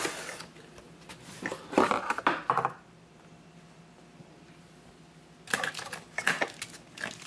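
Clicking and clattering of small hard parts of a rifle stock being handled, in two short spells: one about a second and a half in, and another from about five and a half seconds in.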